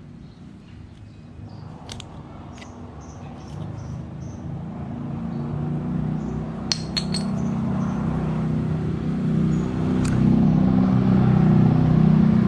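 A motor vehicle's engine rumble growing steadily louder, with a few sharp clicks about two, seven and ten seconds in.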